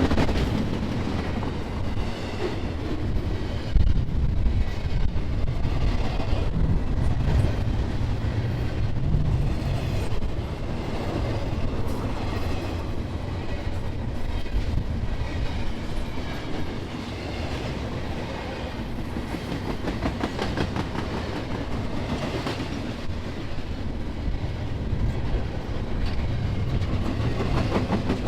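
Freight train rolling past, its steel wheels clacking steadily over the rail joints with a continuous rumble.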